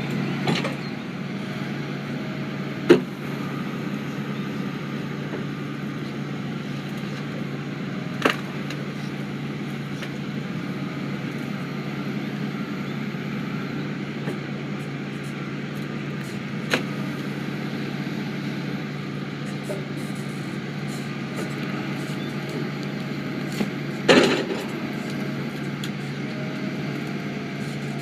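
An engine running steadily at an even, low pitch, with a few short sharp knocks over it, the loudest about three seconds in and another near the end.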